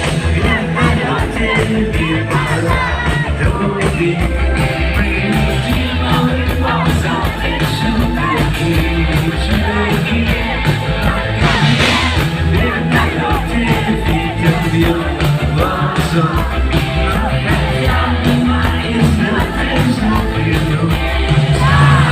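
Live rock band playing with a singer singing over a steady beat.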